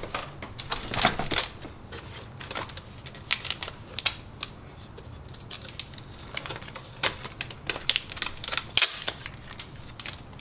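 Protective tape and packing strips being peeled off a new Kyocera printer drum unit, with its plastic housing being handled: irregular short clicks and crackles.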